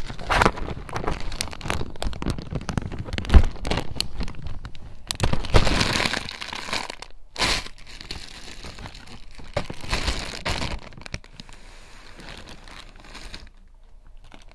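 Plastic zipper bag crinkling and rustling as it is handled close to the microphone, in irregular bursts with sharp crackles. The loudest crack comes about three and a half seconds in, and the handling dies down near the end.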